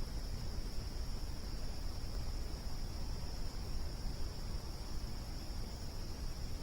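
Insects trilling in a steady, unbroken high-pitched chorus, typical of crickets, over a low rumble.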